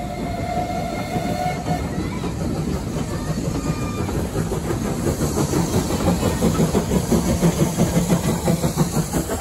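A steam locomotive's whistle sounds a steady note that ends about two seconds in. The train then rolls past as a dense run of wheel knocks on the rails over a rumble, which grows fuller in the second half.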